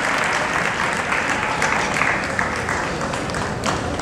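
Arena crowd applauding: dense, steady clapping from many hands, thinning a little near the end.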